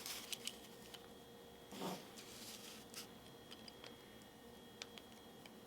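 Faint scattered clicks and scratches of a craft blade worked back and forth into a cardboard tissue roll to cut a hole, with a soft rustle about two seconds in.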